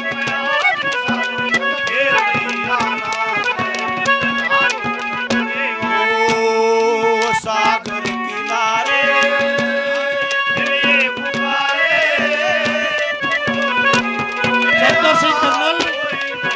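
Live Haryanvi ragni accompaniment with no words sung: a harmonium plays a melody over a held drone, backed by a fast, steady hand-drum rhythm.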